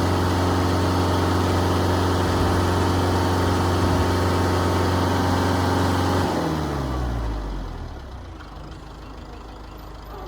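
An engine idling steadily, then shut off about six seconds in, its pitch falling as it winds down and leaving a fainter low hum.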